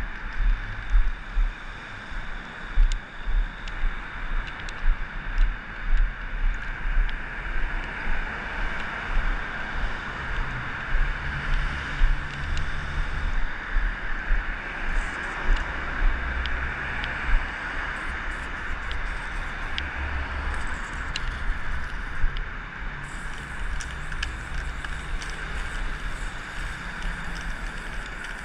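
Footsteps on a stone sidewalk, about one and a half steps a second and growing fainter after the first half, over the steady hum of city traffic.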